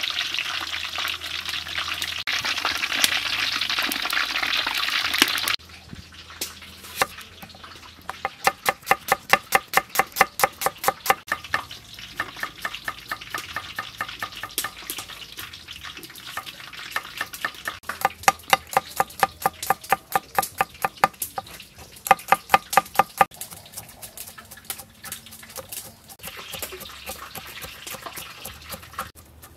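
Hot oil sizzling in a wok as kaffir lime leaves fry and a spatula stirs; about five seconds in it cuts off. Then a cleaver chops shallots, garlic and red chillies on a wooden cutting board in runs of quick, even strokes, about four or five a second, with a short hiss near the end.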